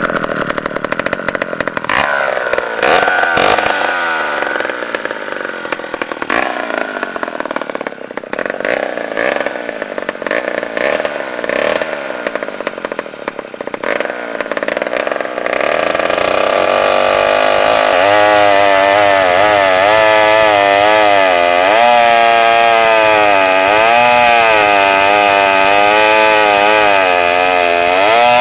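1969 Poulan Model 53 two-stroke chainsaw, its carburetor just rebuilt, running ragged and choppy for about the first half. Past the halfway point it settles into a steady high-revving run, its pitch dipping and recovering again and again.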